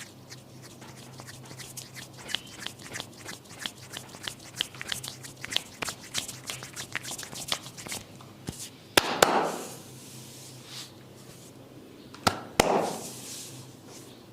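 A barber's hands tapping and chopping quickly on a client's head and shoulders in a massage, several light clicks a second for about eight seconds. Then one loud sharp crack about nine seconds in and two more in quick succession about twelve seconds in, each with a brief rustle after it.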